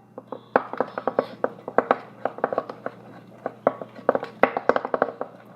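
Spoon stirring a mixture of glue, water and shaving cream in a bowl, with quick irregular clicks and taps of the spoon against the bowl, a few a second.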